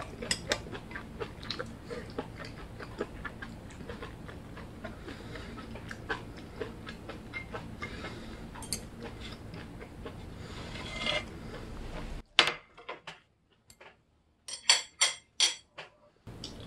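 Close-up eating sounds of tomato jeon: chewing with a stream of small clicks. About twelve seconds in the room noise drops away and a handful of sharp, louder clicks follow.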